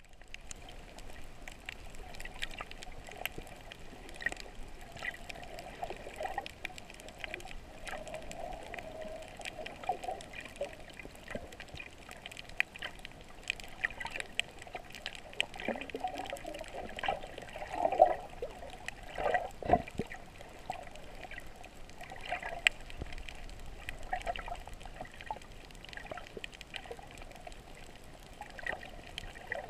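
Water sounds picked up underwater by a GoPro Hero in its housing: a muffled, steady wash and gurgle of water with many small scattered clicks. A few louder gurgling surges come just past the middle.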